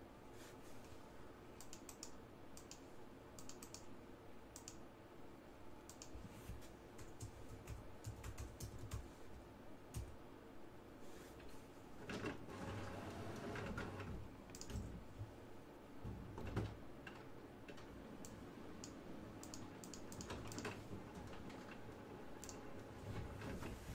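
Clicking keystrokes on a computer keyboard as someone types, faint and irregular, with a louder, noisier stretch about halfway through.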